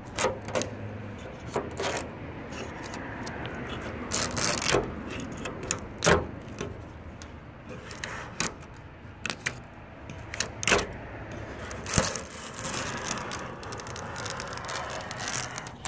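Razor blade scraper working under the old paint on a 1972 Cougar's body panel, scratching along as the base coat lifts off the metal in strips, with many sharp clicks and ticks scattered throughout.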